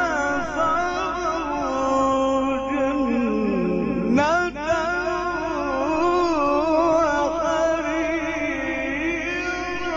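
A male Quran reciter chanting a verse in long, drawn-out melodic phrases, holding and ornamenting each note. About four seconds in his voice slides down low and then leaps back up high.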